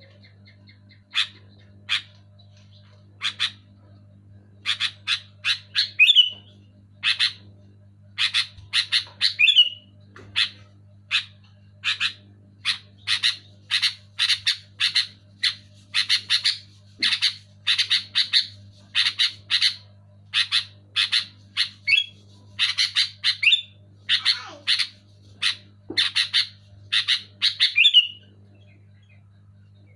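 Sooty-headed bulbul (kutilang) calling loudly, a long string of short, sharp notes about two a second, with brief gaps, and a few notes ending in a falling slur. A steady low hum runs underneath.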